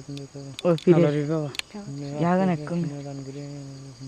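A monk's voice intoning on a low, mostly level pitch, with brief rises and falls about a second in and again past two seconds. Crickets chirr steadily and high in the background.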